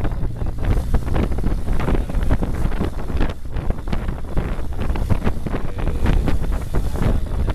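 A longtail boat's engine running steadily at speed, with wind buffeting the microphone in gusts and the wake rushing along the hull.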